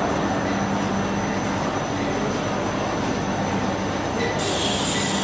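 Protective-clothing laminating machine running: a steady, dense mechanical noise with a constant low hum. A high hiss joins near the end.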